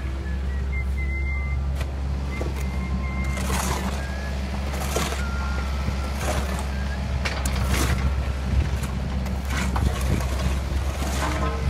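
Kobelco SK50 mini excavator's diesel engine running steadily, with irregular sharp knocks and scrapes from the machine at work.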